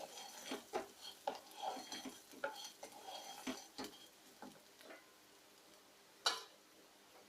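A spatula stirring and scraping fried cauliflower pieces in a frying pan, with irregular clinks and scrapes against the metal that die away about five seconds in. One sharper knock of utensil on pan comes a little after six seconds.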